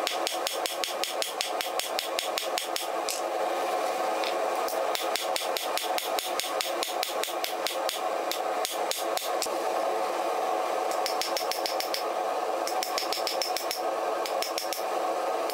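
Hand hammer striking a red-hot steel knife blade on an anvil in a fast, even rhythm, about five blows a second, hammering in a taper to thin the blade. Later blows bring short high rings from the anvil, all over a steady background noise.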